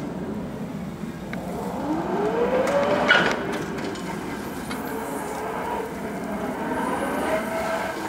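Hyster N40FR electric reach truck's drive motor whining, rising in pitch twice as the truck accelerates, over a steady running noise. A sharp click comes at the top of the first rise.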